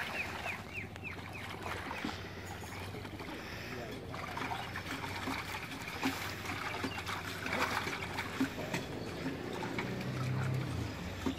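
Shallow pond water splashing and trickling as a man wading in it works a fishing net by hand, with many small irregular splashes. A quick run of high falling chirps comes at the start, and a low hum near the end.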